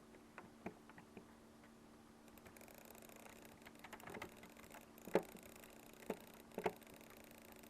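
Irregular small clicks, about a dozen spread unevenly, with the loudest about five seconds in and a quick double click soon after, over a faint steady low hum.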